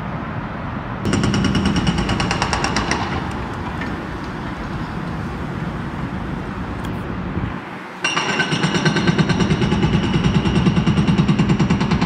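Hydraulic breaker on a Takeuchi TB2150R compact excavator hammering concrete in rapid, evenly spaced blows, with the excavator's engine running underneath. A short burst of hammering about a second in stops after about two seconds, and the hammering starts again about two-thirds of the way through and keeps going.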